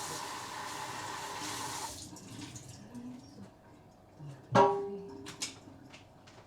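Kitchen tap running into a sink, shut off about two seconds in. A few seconds later a piece of kitchenware is knocked or set down with a sharp, ringing clank, the loudest sound, followed by a few small clinks.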